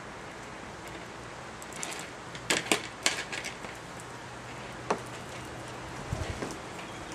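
Small plastic clicks and ticks from a wiring-harness connector and a metal pick tool, with wires rustling, as a terminal is depinned from the connector. A cluster of sharp clicks comes about two and a half seconds in, one more near five seconds, and softer handling noises near the end.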